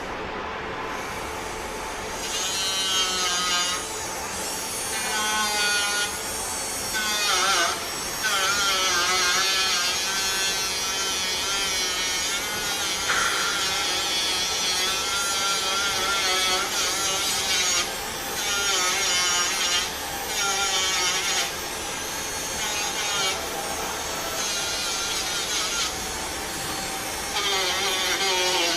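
A power tool working on a car body panel in bursts of a second or a few seconds each, its grinding hiss wavering in pitch as it bears on the metal.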